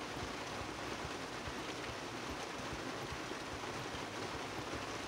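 Heavy rain coming down steadily on the truck, heard from inside the cab as an even rushing hiss.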